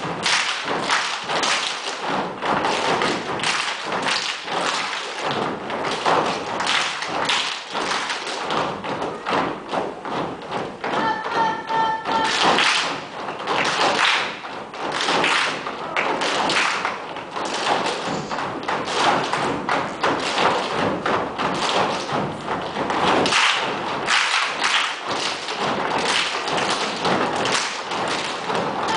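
Gumboot dancers stomping and slapping their rubber boots in unison on a wooden stage: a dense, rhythmic run of thuds and slaps. A short series of high pipping tones cuts in about eleven seconds in.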